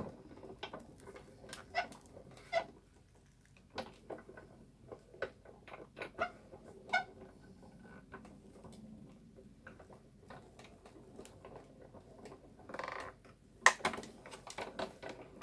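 Sizzix Big Shot die-cutting machine being hand-cranked, rolling a hot-foil plate and die through its rollers. Irregular faint creaks, squeaks and clicks come from the turning crank, with a sharp knock near the end.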